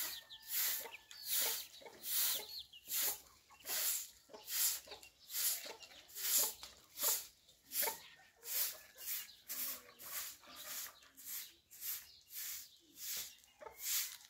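Repeated hissy scraping or brushing strokes in an even rhythm, about one and a half a second, picking up slightly in pace in the second half.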